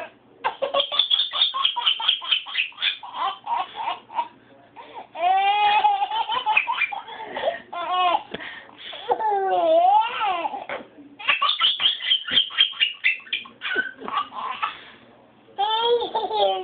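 A baby laughing hard in repeated fits of belly laughter and high squeals, set off by squeezes of a nearly empty plastic ketchup bottle that sputters out air.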